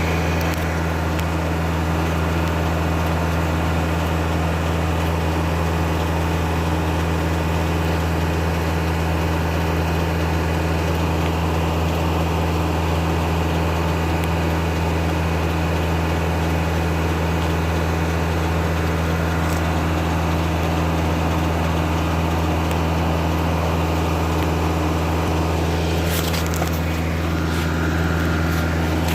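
Kubota tractor's diesel engine running at a steady speed, driving a circular sawmill through its PTO, with a brief burst of noise near the end.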